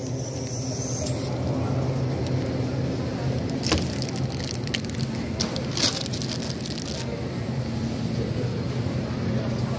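Supermarket background: a steady low hum with a faint high tone in the first second, and a couple of sharp knocks, about four and six seconds in.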